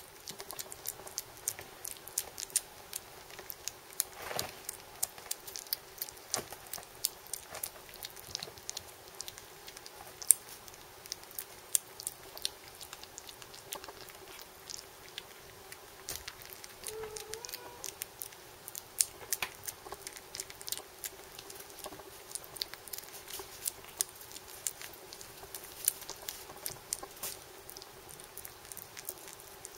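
Scottish Fold kitten eating weaning food: many small quick chewing and clicking sounds, with a brief faint squeak about 17 seconds in.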